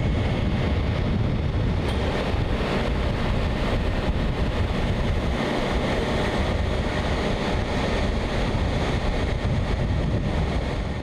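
Steady rushing noise of wind on the microphone and ocean surf, unbroken throughout.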